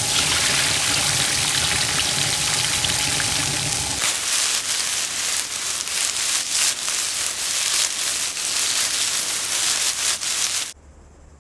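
Dense hissing noise like rain or frying, turning into a crackly patter of many small clicks about four seconds in, then cutting off abruptly near the end.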